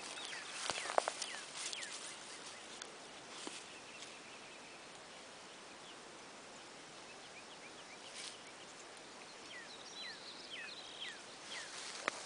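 Faint outdoor ambience with rustling and a few clicks in the first two seconds as an American Foxhound puppy noses through grass, and a handful of short high chirps near the end.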